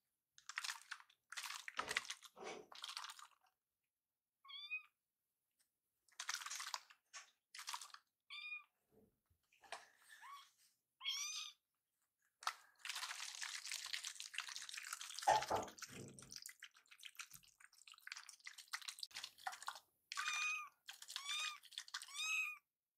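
Young tabby kitten meowing in short, high mews: a few single mews, then a quick run of about five near the end, demanding to be fed milk. Cloth rustles in between as the kitten is handled against an apron.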